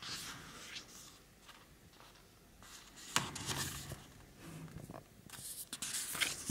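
Pages of a hardcover photo book being turned by hand: paper rustling and sliding, several times, with the loudest turn about three seconds in.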